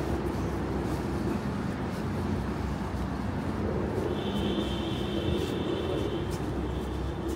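Steady drone of city street traffic as vehicles pass. A high squeal lasting about two seconds rises above it near the middle.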